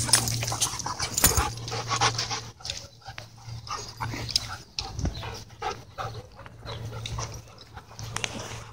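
Dogs play-wrestling close to the microphone: irregular dog vocal sounds and short scuffles, loudest in the first couple of seconds and quieter after.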